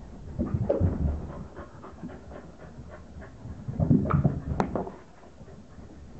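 Corgis running and scrambling after a ball on carpet, their paws thudding close to a floor-level camera in two bursts, the second with one sharp click.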